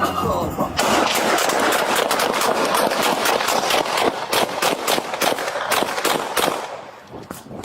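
Rapid gunfire: a long string of shots in quick succession, starting about a second in and dying away near the end.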